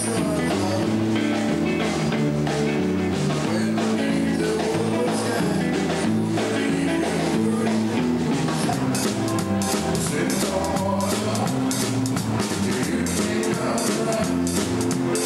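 Live rock and roll band playing: electric guitars over a drum kit. The cymbal strokes grow busier about halfway through.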